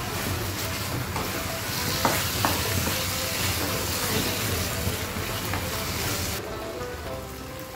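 Minced meat sizzling as it fries in butter and oil, being stirred in the pan during the bhuna stage, as the moisture cooks off. A couple of faint clicks from the stirring come about two seconds in, and the sizzle drops away sharply near the end.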